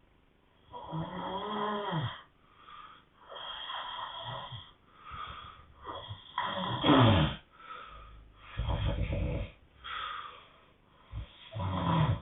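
A couple snoring, one snore following another about every one to two seconds, some rattling and low, some higher and wheezy. The loudest snore comes a little past the middle.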